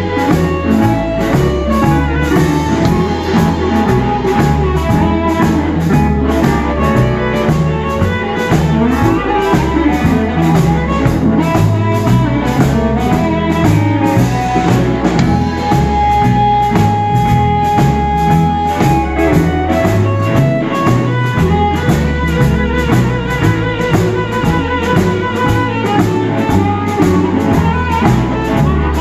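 Live electric blues band: a harmonica lead over electric guitar, electric bass and a drum kit keeping a steady groove. The harmonica holds one long note about halfway through.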